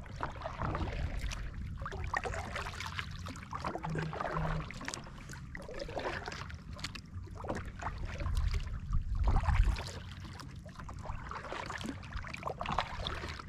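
Kayak paddle strokes: the blades dipping and pulling through calm water, with splashing and dripping off the paddle, and a low rumble swelling about nine seconds in.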